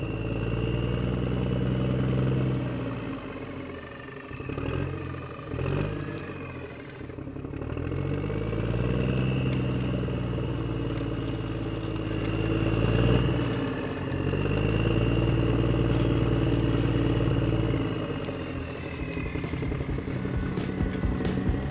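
Radio-controlled model tractor running, its engine sound rising and falling in pitch several times over a steady high whine.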